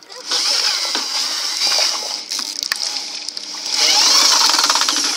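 Electric drill driving a homemade juicer, its motor running with a whine whose pitch wavers up and down under load, louder for about a second near the end.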